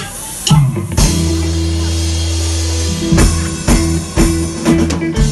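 Live reggae band starting a song: a loud opening hit, a long held low chord from bass and keyboards, then the drum kit coming in with a steady beat about three seconds in.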